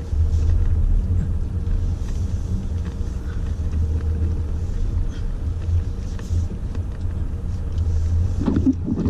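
Low, steady rumble of a Jeep Trailhawk's engine and tyres while driving. It grows louder just after the start.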